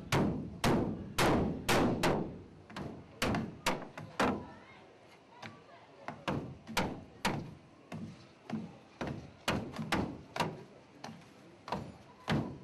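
Hand hammer striking nails into the wooden planks of a boat under construction: a run of irregular sharp knocks, about one or two a second, loudest in the first couple of seconds and thinning briefly around the middle.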